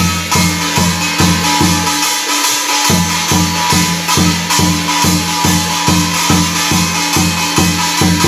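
Korean shamanic barrel drum (buk) beaten with a mallet in a steady rhythm of about three strokes a second, with lighter strokes on smaller drums from a second stick; the deep drum note drops out for about a second around two seconds in. A steady high tone is held over the beat.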